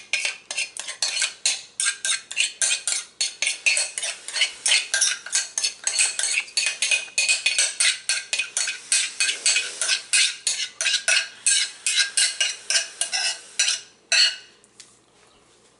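Metal spoon scraping thick hummus out of a mixing bowl into a serving bowl: quick repeated scrapes and clinks against the bowl's side, about five a second, stopping shortly before the end.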